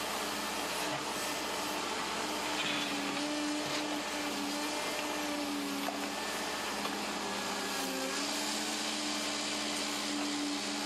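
Cat 309 CR mini excavator's C3.3B diesel and hydraulics running under load as it works its boom and bucket: a steady whine over the engine noise, its pitch dipping briefly about eight seconds in.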